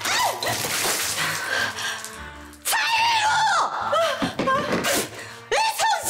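Water splashed from a bowl into a woman's face, followed by her shrieking and crying out over background music.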